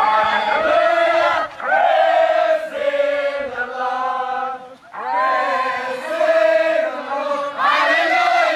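A large crowd of young voices chanting together in unison, in phrases broken by short pauses.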